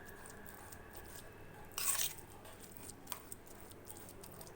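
A spoon mashing soft cooked rice and potato moistened with soup in a bowl: soft squishing, with a brief scrape of the spoon against the bowl about two seconds in and a few light clicks.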